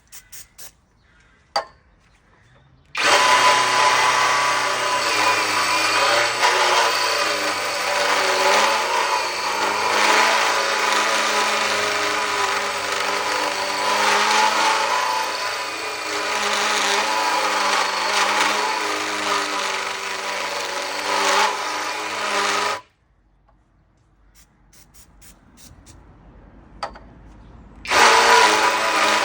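Cordless combi drill (Flex 18 V) driving a used 40 mm tungsten-carbide-tipped hole saw through thick steel plate. A few light clicks come first, then a long steady cutting run that stops suddenly, and after a pause of a few seconds the cutting starts again near the end.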